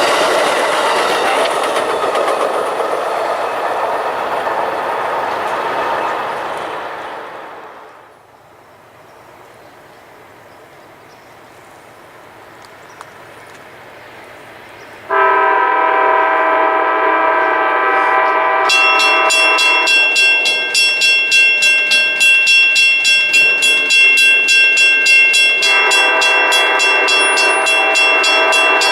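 A passing train's rumble fades away over the first several seconds. About halfway through, a locomotive air horn sounds suddenly and holds as a long chord. A few seconds later a bell starts ringing rapidly and keeps ringing with it.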